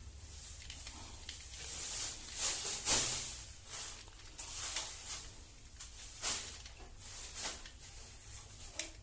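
Screwdriver loosening the terminal screws of a plastic wall socket, with irregular scraping and small clicks of metal on screw heads and plastic.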